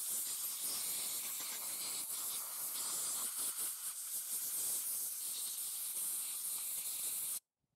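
Compressed-air blow gun hissing steadily as it blows sawdust out of a chainsaw's carburetor compartment. The air cuts off suddenly near the end.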